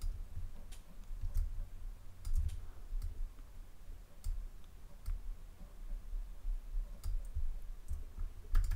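Computer mouse clicking, a dozen or so scattered clicks at uneven intervals, over a low background rumble.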